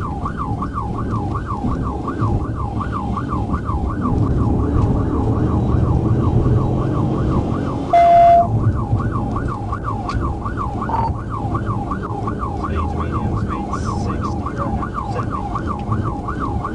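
Police siren in fast yelp mode, sweeping up and down about two and a half times a second, over the engine and road noise of the pursuing patrol car. A short, loud steady tone cuts in about halfway through.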